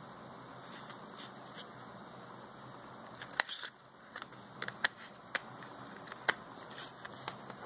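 Scattered sharp plastic clicks and taps from a Microsoft Lumia 535 phone being handled as a battery is fitted into its open back, over a faint steady hiss. About eight clicks, starting a little over three seconds in.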